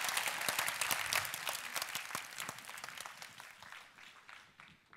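Audience applauding, a dense patter of many hands clapping that gradually dies away toward the end.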